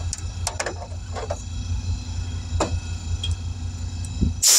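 Scattered clicks and knocks of tire tools and wheel handling over a steady low hum, ending in a short, loud burst of air hiss as the small camper tire is being aired up.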